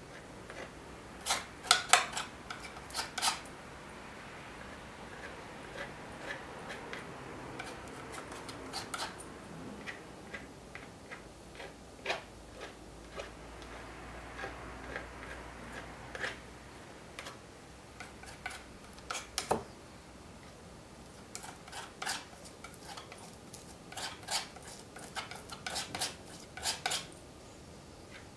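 Metal palette knife scraping and tapping against a painted board and palette while spreading paint: clusters of sharp clicks, with a stretch of soft scraping in the middle.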